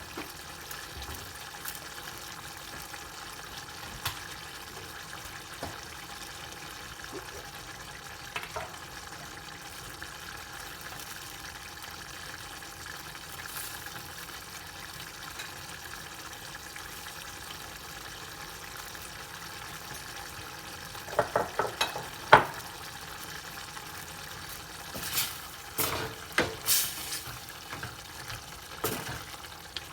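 Food sizzling steadily in a hot pan, with a quick run of clicks a little past two-thirds of the way through and several sharp clatters of a utensil against the pan near the end as it is stirred.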